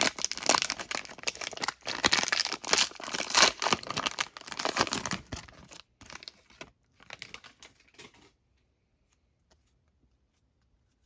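Wrapper of a 2022 Panini Score football card value pack being torn open and crinkled, a dense crackling that lasts about six seconds, followed by lighter rustling that stops about eight seconds in, then only a few faint clicks.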